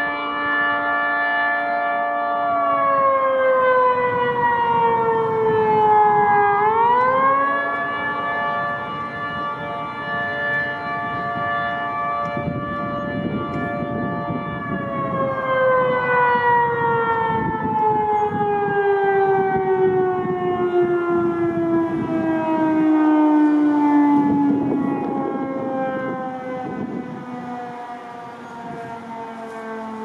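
Outdoor warning siren wailing. Its pitch holds, falls, swings back up about seven seconds in and holds again, then winds slowly down through the second half.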